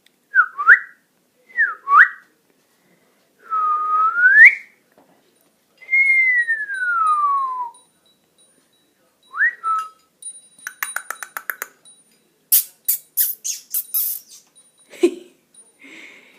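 African grey parrot whistling: a string of pure whistles, short upward slides, a longer one that dips and then rises, and a long slow whistle falling in pitch. After about ten seconds they give way to a fast run of beak clicks and sharper clicking noises.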